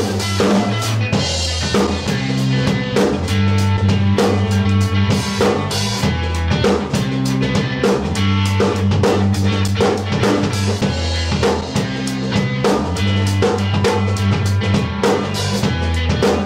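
Live instrumental funk jam by a trio: a drum kit playing a busy, steady beat with electric bass and electric guitar. The drums are the most prominent part, over held bass notes.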